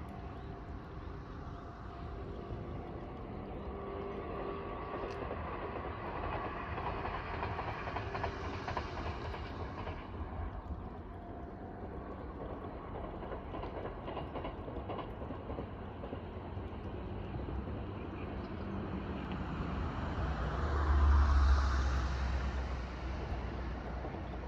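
Meitetsu electric train running along the Toyokawa Line at a distance, its running noise swelling and fading twice, loudest about twenty seconds in.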